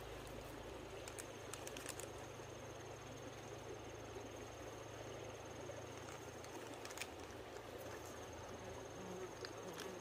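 A steady, high-pitched insect trill that drops out for about a second partway through, over a low steady hum, with a few faint clicks.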